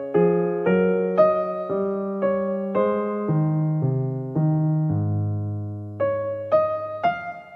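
Slow, soft electric piano music, a new note or chord about every half second, with a longer low note held about five seconds in.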